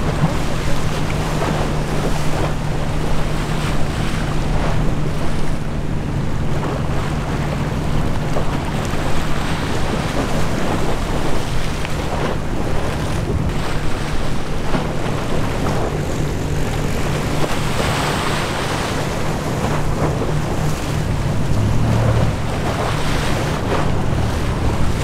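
Wind gusting on the microphone over the steady low drone of a large passing cargo ship's engine, with waves washing.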